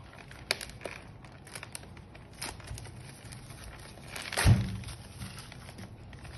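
Thin plastic packaging crinkling and rustling as a small cardboard box of RAM is pulled out of it, with scattered crackles and a louder rustle and dull thump about halfway through.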